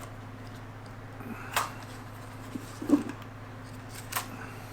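A few light clicks and a soft knock as the small plastic drone is handled, over a steady low electrical hum.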